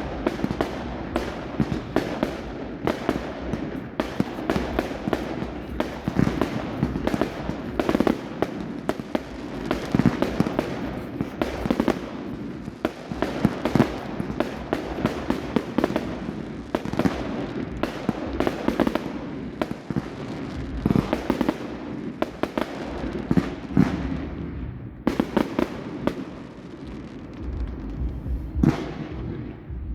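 Fireworks going off in a continuous barrage: many bangs and crackles every second, overlapping one another.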